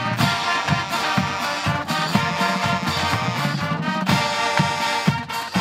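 HBCU-style marching band playing a loud, steady piece: the brass section sounds held chords over a beat kept by marching bass drums, snares and cymbals.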